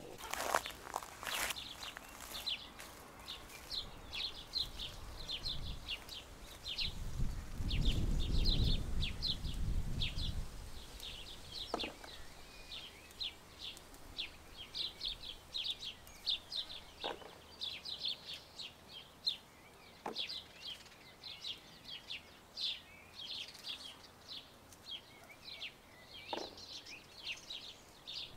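Small birds chirping over and over in short high notes, with a low rumble about seven to ten seconds in and a few soft clicks.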